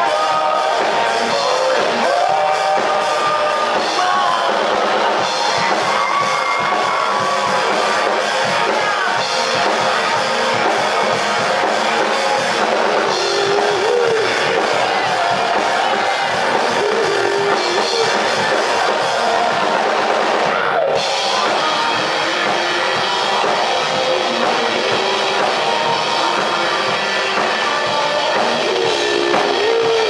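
Live rock band playing: drum kit, electric guitar and bass, with a male lead vocal.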